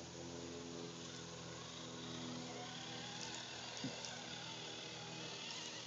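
RC rock crawler's motor and gears whining steadily as the truck climbs a rock face, with one short click about four seconds in.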